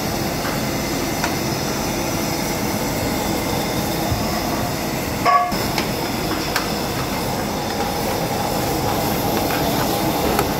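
Steady rushing roar of a large gas burner's open flame under a metal cooking pan, with a few light clicks of metal utensils and a short ringing clink about five seconds in.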